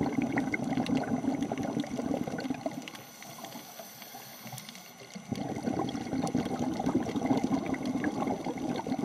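Underwater sound picked up by a scuba diver's camera: a bubbling rush of the diver's exhaled regulator bubbles, which drops away for about two seconds midway during an inhale and then comes back, over a faint crackle of small clicks.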